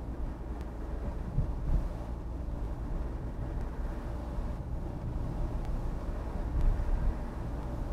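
Car interior noise while driving: a steady low rumble of engine and tyres on the road, with a couple of small bumps.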